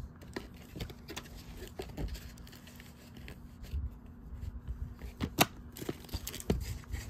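Handling noise from VHS tapes and their paper coupon inserts: scattered light clicks and taps of plastic with soft paper rustling, two sharper knocks near the end.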